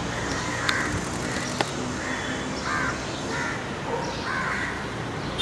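A bird calling repeatedly outdoors: a string of short calls about half a second to a second apart, with two sharp clicks in the first two seconds.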